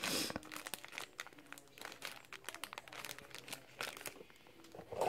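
Small paper gift bag crinkling and rustling as it is handled and opened, with irregular crackles throughout and a louder rustle at the start.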